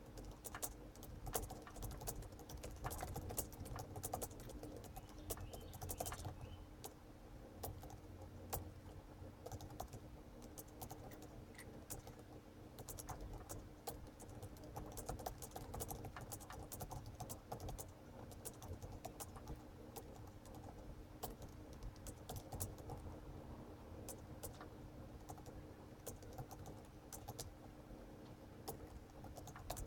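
Computer keyboard being typed on at a steady pace, about 56 words a minute: a continuous run of irregular, rapid key clicks over a faint steady low hum.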